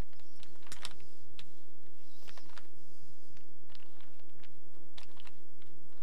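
Plastic clicking of a Rubik's Cube's layers being twisted by hand in quick, irregular turns, loudest about a second in. A steady low electrical hum runs underneath.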